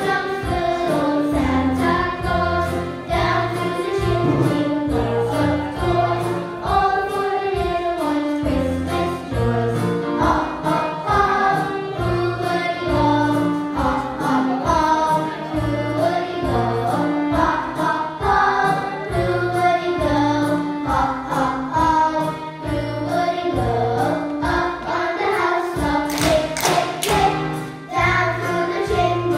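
Children's choir singing a Christmas hymn together over instrumental accompaniment with a steady bass beat. A quick run of sharp percussive hits comes near the end.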